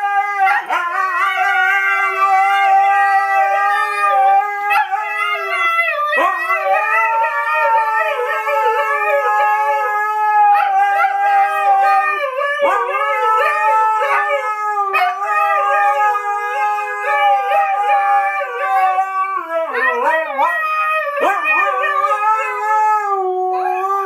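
Two huskies howling together: long drawn-out howls that waver in pitch and overlap, with only brief breaks for breath.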